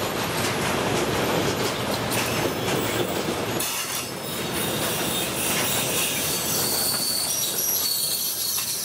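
Freight train of covered hopper wagons passing close by at speed: a steady, loud rumble and clatter of steel wheels on the rails. In the second half a faint high wheel squeal joins in.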